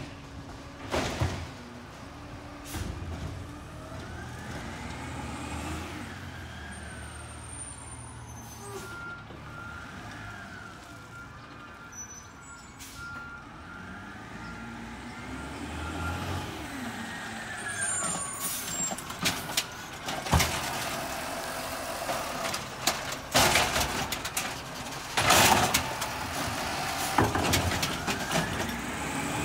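Automated side-loader garbage truck working and moving: its diesel engine revs up and down again and again, with a string of beeps about a third of the way in. In the last third it grows louder as it pulls close, with sharp clanks and hisses.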